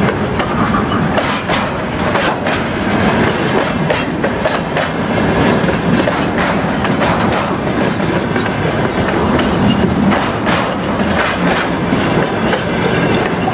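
Freight train rolling past, its wheels clattering over the rail joints in a steady stream of irregular clicks and knocks.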